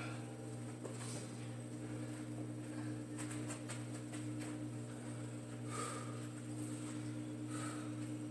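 Quiet, steady low hum with a few faint, brief noises: a short run of faint clicks about three seconds in, and two soft short sounds in the second half.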